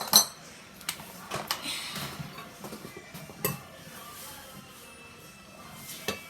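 Kitchen utensils and dishes clinking and knocking now and then, a handful of separate short taps over a few seconds, as cookie dough is worked in a bowl.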